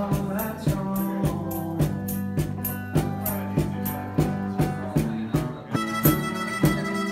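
Music with a steady beat. It changes abruptly near the end as a different piece begins.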